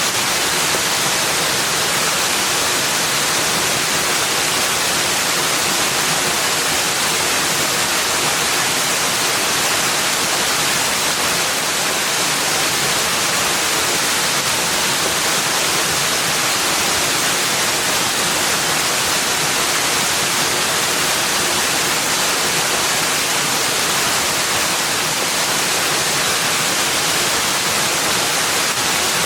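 Steady rushing water, an even unbroken hiss with no distinct splashes or calls.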